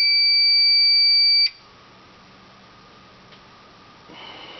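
Silent Knight SK2 fire alarm control panel's built-in piezo sounder giving one steady high-pitched tone as the panel resets, cutting off suddenly about a second and a half in. A fainter buzz comes in near the end.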